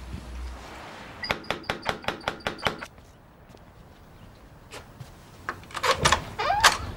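A quick run of about ten sharp knocks, rapped on a door. A couple of single knocks follow, and a short squeak or creak comes near the end.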